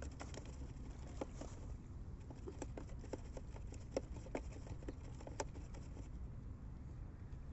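Scattered light clicks and taps, irregularly spaced and thinning out near the end, over a steady low rumble of wind and sea at a rocky shoreline.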